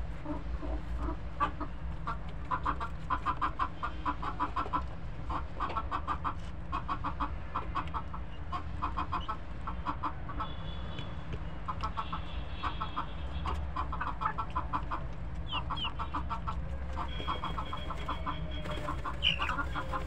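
Chickens clucking in repeated quick runs of short notes, with some higher calls, and sharp ticks of beaks pecking at a metal feed tray, over a steady low rumble.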